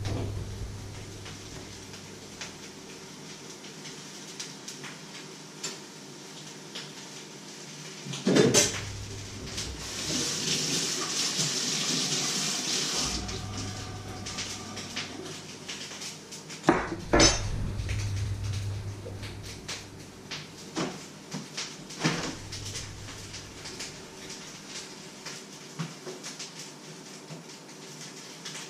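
Dishes and metal cutlery clinking and clattering at a kitchen sink, with a few louder knocks and a tap running for a few seconds in the middle.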